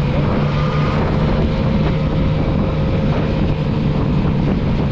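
Motorcycle engine running at fairly steady revs while riding, heard from on board, with wind rushing over the microphone.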